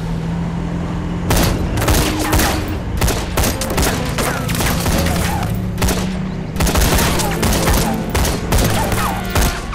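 A fusillade of rifle fire: many shots in quick, overlapping volleys with a short lull a little past the middle, over a steady low hum.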